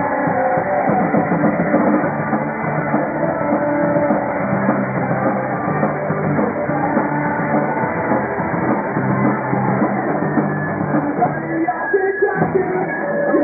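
Punk rock band playing live: drum kit and singing over a loud, dense band sound. The music thins out briefly near the end.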